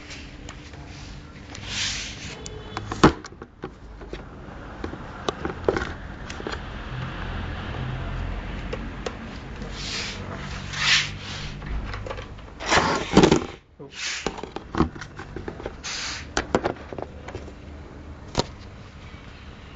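Short spurts of a toy car's small electric motor whirring, among scattered knocks and scrapes, the loudest knock about three seconds in.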